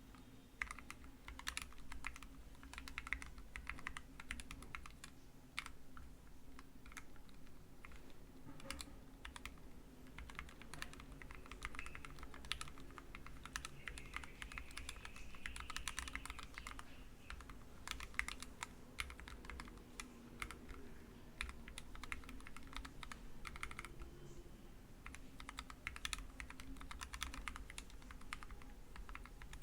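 Typing on an Ergodash split ergonomic keyboard with lubed Gateron KS8 switches and blank PBT cherry-profile keycaps: a steady run of keystrokes at a slow, uneven pace.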